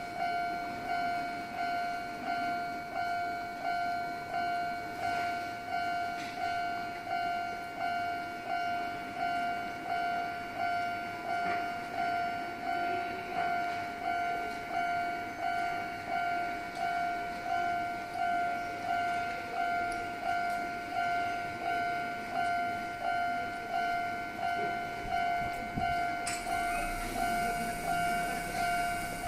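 Japanese level-crossing warning bell ringing steadily and evenly, about one and a third dings a second. Near the end a higher hiss joins as the Toden Arakawa Line tram draws near.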